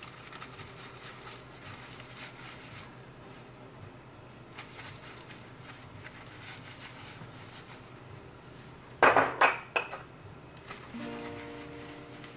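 Ceramic ramekins clinking against each other, a quick cluster of sharp clinks about nine seconds in. Near the end a held musical chord begins.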